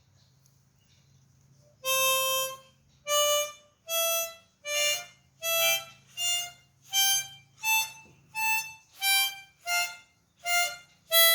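Tower 24-hole, 48-tone chromatic harmonica played one separate note at a time, about one note a second, starting about two seconds in. The notes step up and then come back down.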